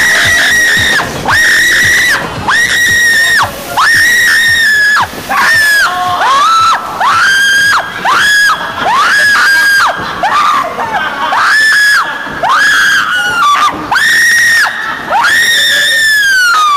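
A person screaming over and over: loud, high-pitched shrieks, each held for most of a second, about one a second with brief breaths between.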